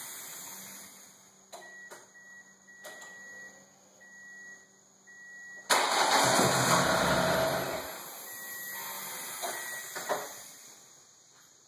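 Ford Escort ZX2's swapped-in SVT Focus four-cylinder engine cranking on the starter for about two seconds without catching: it turns over but won't start, though the timing has just been done. Before and after, a high electronic beep sounds on and off, with a few sharp clicks.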